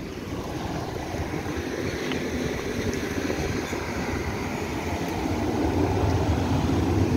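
Steady roadside noise: wind rumbling across the microphone mixed with road traffic, with no distinct event standing out.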